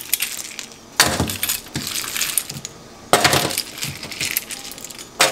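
A big spoon scooping crushed ice and sliced cucumbers out of a large bowl, the ice clinking and crunching in two main scoops, about a second in and about three seconds in.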